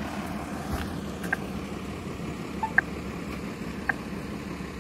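Steady low rumble of road traffic at an intersection, with a refuse truck and a bus crossing. A few short, high chirps sound over it, the loudest near the middle.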